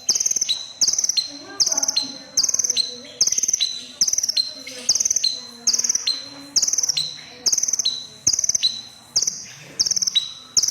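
Red-breasted kolibri ninja sunbird (konin) calling: a short, sharp, buzzy high note repeated very evenly about twice a second.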